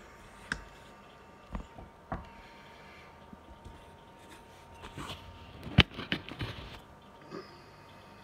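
Scattered light knocks and clicks from handling as the phone camera is repositioned, the loudest just before six seconds in among a short cluster, over a faint steady hum.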